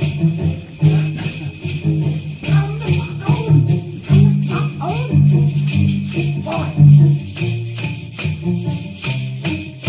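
Upbeat music with sleigh bells jingling on the beat over a bass line of steady notes that change every half second or so.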